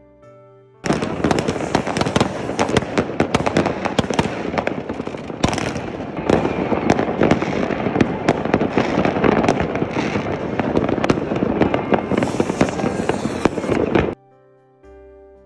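Many fireworks going off at once, a dense run of bangs and crackling that cuts in about a second in and stops suddenly near the end. Soft piano music plays before and after.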